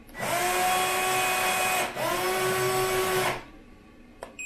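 Electric motor of a Double Hobby Volvo EC160E 1/14 RC excavator driving the boom at its fastest speed setting, in two runs of about one and a half seconds each. Each run is a whining whir that rises in pitch as it starts, then holds steady. A single short click comes near the end.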